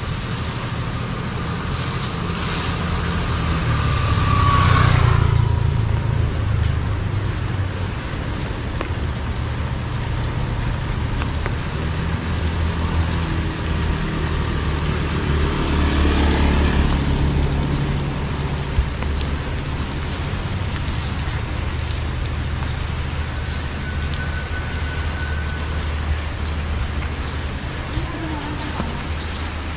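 Street traffic: a vehicle passes close about five seconds in, its whine dropping in pitch as it goes by, and another passes around sixteen seconds in, over a steady low rumble.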